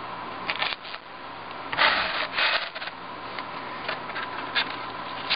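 Fingers rubbing and scraping on a foam pinning board while handling a pinned butterfly specimen: a few short scratchy rustles, the loudest about two seconds in. A faint steady high hum runs underneath.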